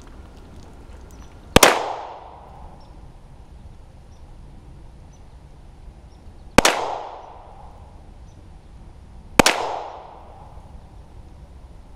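Three single pistol shots from a 9 mm Polymer 80 pistol built with a new Brownells Glock-pattern slide, fired slowly a few seconds apart, each followed by a short echoing decay.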